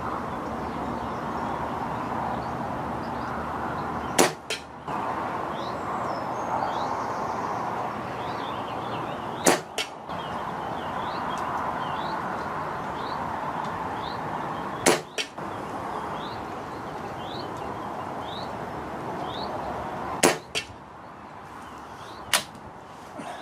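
Air rifle shots, about five sharp reports spaced roughly five seconds apart, the shooter loading a single pellet between each. Each of the first four is followed a moment later by a fainter knock. Steady wind noise runs underneath, with a few faint bird chirps.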